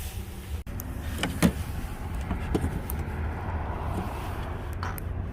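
A woman hiccuping: a few short, sharp hiccups a couple of seconds apart, the clearest about a second and a half in, over a steady low rumble.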